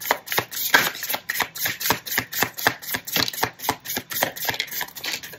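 Tarot cards being shuffled by hand: a rapid, even run of crisp card clicks, about six or seven a second, as cards drop out of the deck onto the table.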